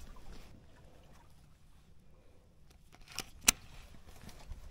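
Two sharp knocks about three seconds in, the second much louder, from handling on a small fishing boat, over a low steady rumble.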